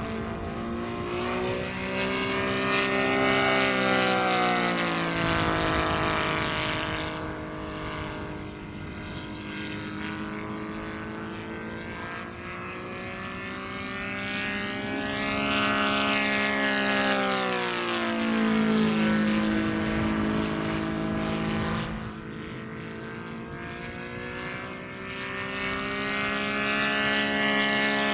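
Saito 60cc three-cylinder four-stroke radial gas engine of a large RC P-47 Thunderbolt model, running in flight as the plane makes low passes. The engine note grows louder as it approaches and drops in pitch as it goes by, about five seconds in and again near eighteen seconds, then swells once more near the end.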